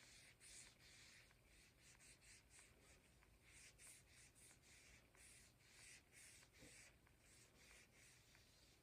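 Faint strokes of an oily cloth rag rubbing oil into a bare beech wood wand, a soft hiss repeated about twice a second.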